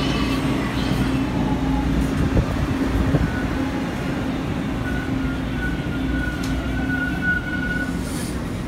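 TTC T1 subway train pulling into an underground station and slowing to a stop: a steady low rumble with a constant hum. A thin high brake squeal comes in about three seconds in and grows stronger until the train halts near the end.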